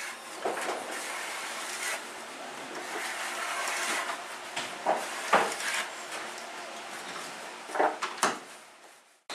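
Objects and tools knocked and set down on a workbench: a steady hiss under several sharp knocks and clatters, two of them close together near the end.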